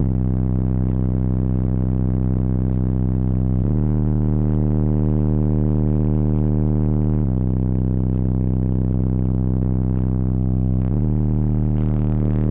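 Very loud bass music from car-audio subwoofers, heard inside the car: long deep bass notes that step to a new pitch about every three and a half seconds, with no vocals.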